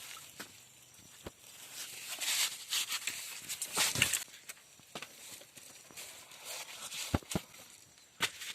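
Irregular footsteps rustling and crunching over dry ground, with two sharp snaps close together near the end.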